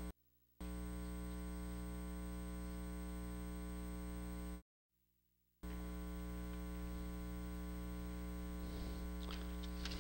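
Steady electrical mains hum with a stack of harmonics in the audio feed, cutting out completely twice, briefly near the start and for about a second halfway through. Faint clicks and rustles come in near the end.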